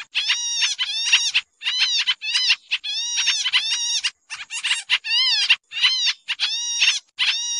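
Pied trillers (kapasan kemiri) calling: a busy, noisy run of short chattering calls, each arching up and down in pitch, about two to three a second with a few brief breaks. It is a lure-call recording of the species.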